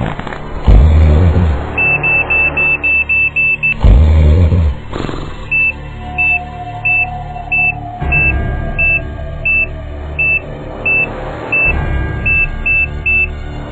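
Electronic beeper sounding one high note: a quick run of beeps, then slower beeps about two-thirds of a second apart that close up near the end. Deep booms come about a second in and again around four seconds in.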